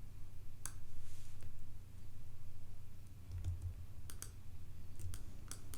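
Scattered sharp clicks of a computer mouse and keyboard being worked, several coming in quick pairs, over a steady low electrical hum.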